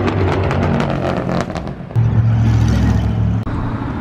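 Car engines running as classic cars cruise slowly past on the street. About two seconds in, the sound changes abruptly to a louder, deeper steady engine note, which cuts off shortly before the end.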